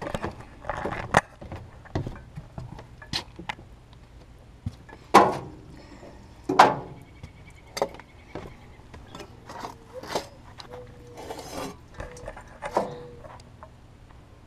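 Handling noise from a handheld camera: scattered clicks and knocks, with two louder thumps about five and six and a half seconds in.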